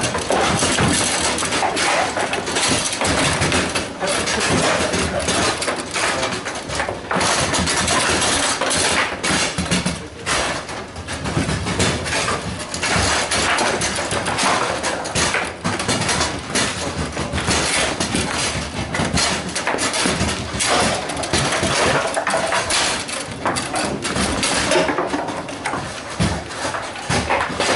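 Table football being played hard: a continual irregular clatter of the ball striking the little rod-mounted players and the table walls, and of the rods knocking and sliding in their bearings, with more tables clattering around it.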